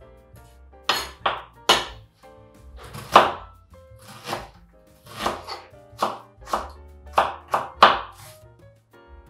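Kitchen knife chopping an onion on a cutting board: about a dozen sharp knocks at an uneven pace, often in twos and threes, over quiet background music.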